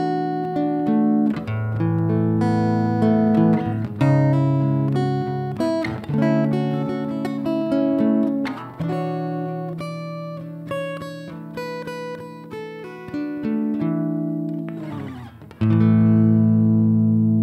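Solo acoustic-electric guitar played fingerstyle, picked notes and chords ringing one after another. About fifteen seconds in a quick strum leads into a loud chord that rings on to the end.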